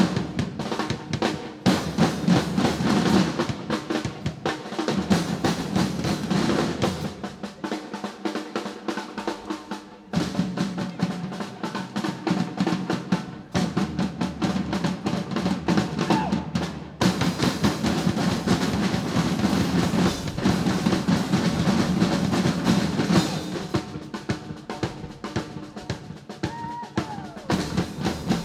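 Drumming group playing a drum kit and several snare drums together with sticks, a fast steady rhythm of strokes. The deep drums drop out for a few seconds about a quarter of the way in, then come back.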